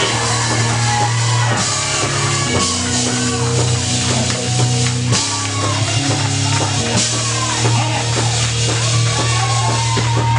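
Live gospel praise music from a church band: bass and drums drive a steady beat, with guitar and singing over it.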